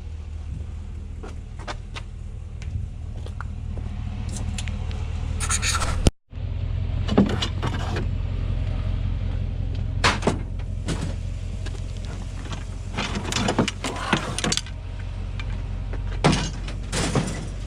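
A vehicle engine idling steadily, with scattered clinks, rattles and knocks of junk being handled and shifted. The audio cuts out briefly about six seconds in.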